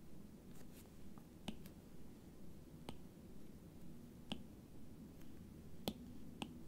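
Stylus tip tapping on a tablet's glass screen: a handful of faint, sharp clicks, irregularly spaced about a second or so apart.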